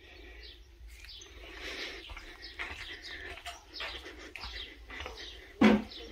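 Wild birds chirping outside, many short high calls one after another. A brief louder sound comes near the end.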